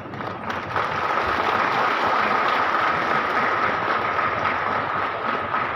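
Crowd applauding, starting at once and growing fuller within the first second, with a steady high-pitched tone running through it.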